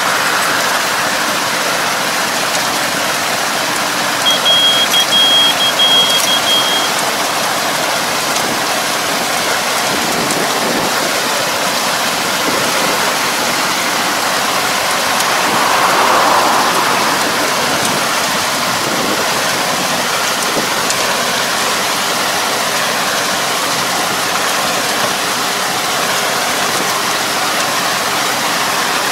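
Tractor puddling a flooded rice paddy with a wide harrow: a steady hiss of churned water and mud over a low engine hum. A short, broken high-pitched tone sounds for a few seconds about four seconds in.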